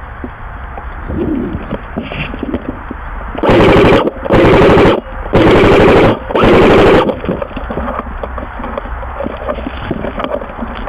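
Airsoft gun firing four short full-auto bursts in quick succession, each under a second long, starting about three and a half seconds in. The bursts are very loud.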